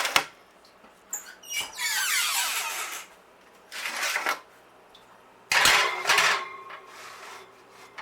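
A metal cookie sheet going into an oven: scraping and squeaking against the rack and door, then a sudden metallic clatter about five and a half seconds in.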